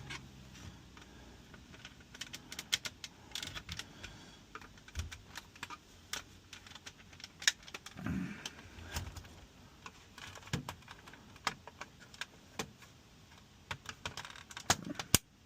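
Irregular small plastic clicks and taps as the push clips holding a dashboard clock unit's plastic back cover are worked loose and prised apart.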